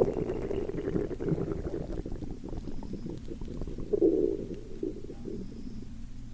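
Hungry stomach gurgling and rumbling in low, irregular bubbling with small crackles, with one louder gurgle about four seconds in.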